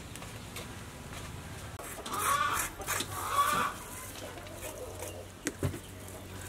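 A chicken clucking: two loud calls about two and three seconds in. A couple of sharp clicks follow near the end.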